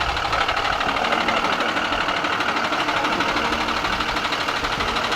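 An engine running steadily, with a rapid, even pulsing.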